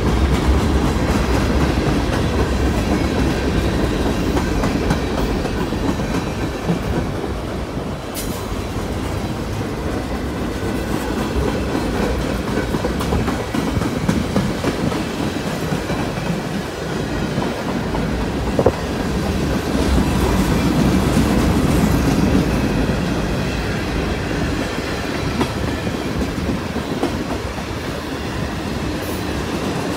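A mixed freight train's cars (gondola, flatcars, tank cars) rolling past at close range: a steady rumble with wheel clatter over the rails. One sharp knock stands out about two-thirds of the way through.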